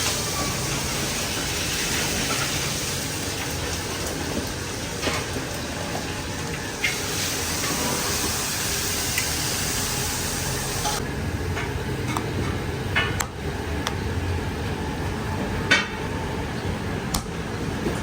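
Street-food cooking sounds: a steady hiss of food frying, with scattered clinks of metal utensils against a pan. The hiss changes suddenly about seven seconds in and thins out about eleven seconds in.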